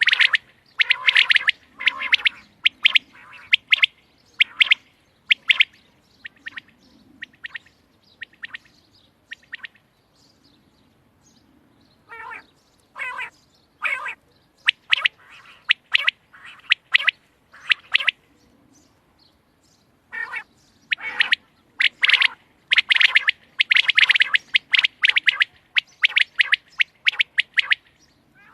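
Quail calling: short, sharp chirping calls repeated in fast clusters, thinning out for a few seconds about a third of the way in before picking up again.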